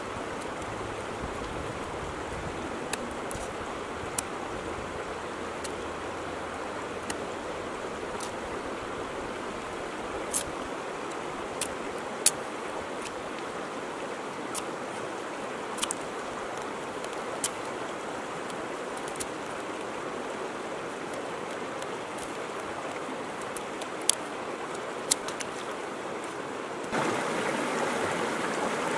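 Mountain river rushing steadily over stones, with irregular sharp clicks of a small fixed-blade knife cutting into hard, dry driftwood. About two seconds from the end the rushing gets louder and the clicks stop.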